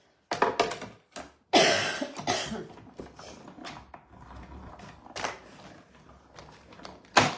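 Handling of an embossing folder and card stock: several sharp clicks and taps, a loud rasping burst about a second and a half in that fades away, then scattered light clicks and one sharp click near the end.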